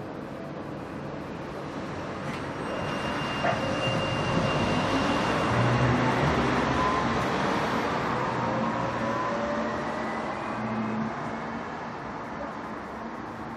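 Tram's electric traction motors whining and rising in pitch as it pulls away from the stop. The tram's noise grows louder to a peak in the middle and then fades, with a sharp click a few seconds in.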